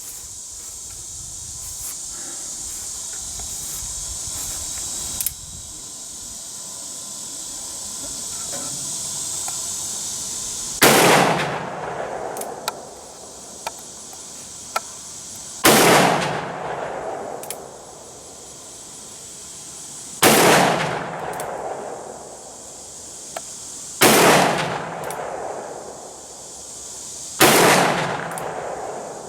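Ruger Single Seven .327 Magnum revolver fired five times, one shot every four to five seconds, each a sharp crack trailing off over about a second, with faint clicks between shots. The rounds are hot 115-grain Speer Gold Dot loads, the most powerful ammunition used in this gun. The first ten seconds hold only a steady hiss before the first shot.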